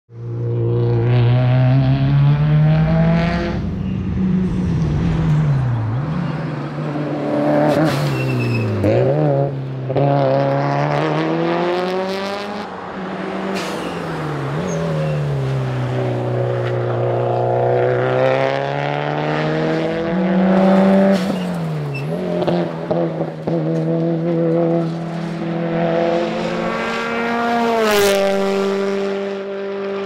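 Subaru WRX STI rally car's turbocharged flat-four engine revving hard, its pitch climbing and then falling sharply again and again as it accelerates, shifts and slows through the bends. There are a few sharp cracks along the way.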